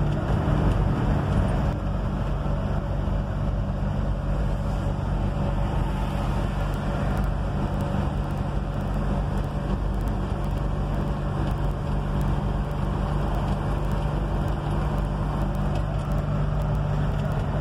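1951 Willys truck heard from inside the cab while driving at steady speed: a constant engine drone mixed with road noise.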